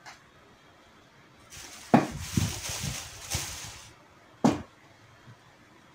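Stuffing rustling as it is pushed into a crocheted amigurumi leg, lasting about two seconds, with soft handling thumps. A sharp knock comes about two seconds in and another about two and a half seconds later.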